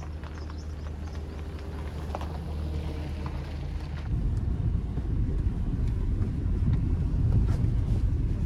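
A car's engine running close by with a steady low hum, then from about four seconds in a louder, rougher rumble of a car driving over a rough dirt road, heard from inside the car.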